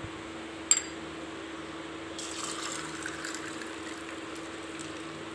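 Shikanji (lemonade) poured from a bowl into a tall glass packed with ice, a splashing pour lasting about three seconds that starts about two seconds in. A single sharp click comes about a second before the pour.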